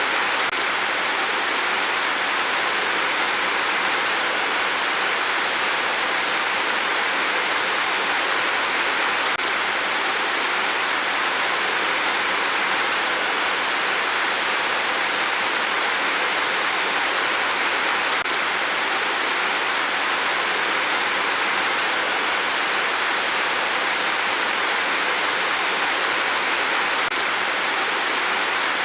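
Steady rain, an even, unbroken hiss with no gusts or breaks.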